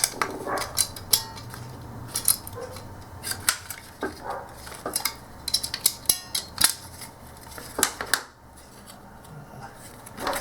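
Irregular small clicks and scrapes of a TV remote's battery-terminal spring being bent and pushed back into place in its plastic battery compartment.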